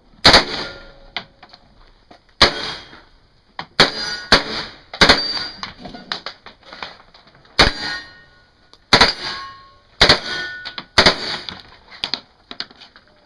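H&K MP5 submachine gun firing short strings of shots with pauses of about a second between them. Some strings are followed by a brief metallic ringing from steel targets being hit.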